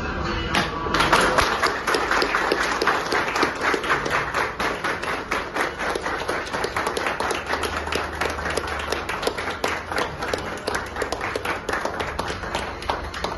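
A group of people clapping their hands. The clapping sets in loudly about a second in and keeps going.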